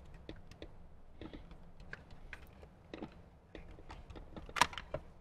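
Plastic wiring connectors being unplugged from the back of a Jeep Wrangler JK's HVAC control panel: scattered light plastic clicks and rattles, with a sharper click near the end as a tab releases.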